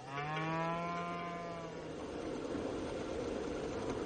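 A low, drawn-out animal call with a slightly falling pitch, about two seconds long, over a steady rushing noise, from a film soundtrack.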